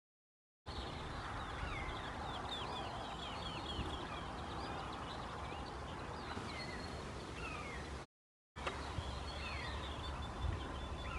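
Wild songbirds singing in the open countryside, many short whistled notes sliding down in pitch, over a steady low rumble of outdoor ambience. The sound cuts out completely for a moment just before eight seconds in.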